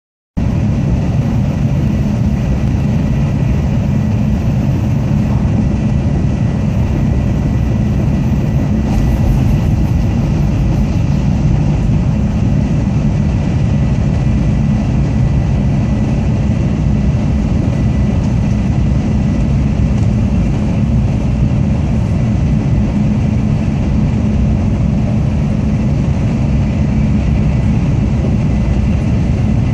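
Tokaido Shinkansen Kodama train running at speed, heard inside the passenger cabin: a steady, dense low rumble of wheels on rail and rushing air, with a faint steady high tone above it.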